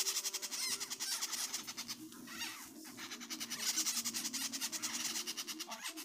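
Parrot chicks giving fast, raspy begging calls in a rapid, steady string of pulses.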